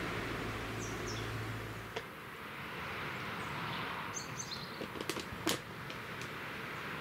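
Small birds chirping in short high calls over a steady rushing wash of sea surf. A low hum under the surf stops about two seconds in, and a few sharp clicks sound past the middle.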